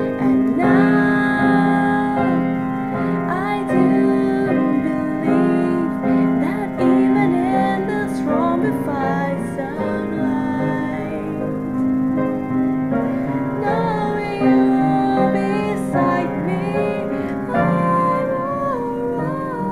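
Piano ballad accompaniment with a female voice singing a slow, wavering melody over it.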